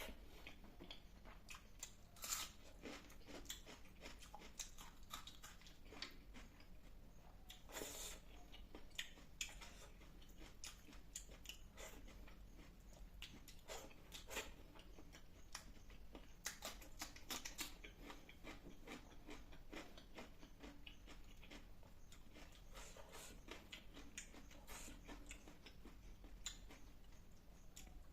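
Quiet, close-up sounds of a person eating fish curry with rice and salad: irregular chewing, biting and wet mouth clicks, with scattered sharper snaps.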